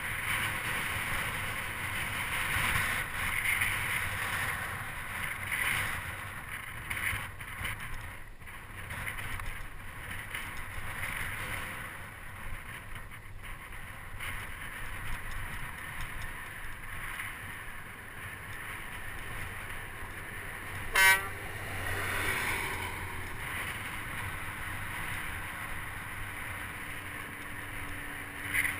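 Steady wind and road noise on a moving vehicle's microphone, with one short, sharp horn toot about two-thirds of the way in. Near the end a steady low hum sets in as a lorry approaches.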